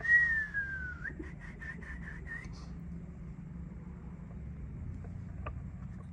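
A high whistle: one note sliding downward for about a second, then a quick run of about six short repeated notes, over a low steady hum.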